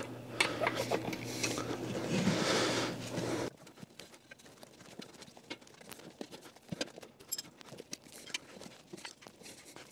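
Rubber inner tube being stretched and worked by hand around a steel garden tractor rim inside the tire: rubbing and scuffing over a steady low hum, which stops suddenly about three and a half seconds in. After that come scattered light taps and clicks of hands and rubber against the rim and tire.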